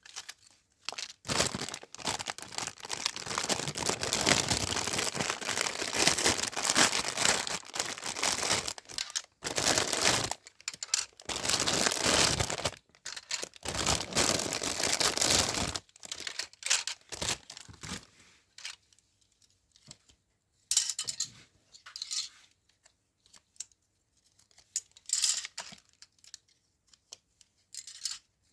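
Parcel packaging being torn open and crinkled by hand during unboxing. Long, nearly unbroken rustling and tearing for the first half, then short scattered rustles.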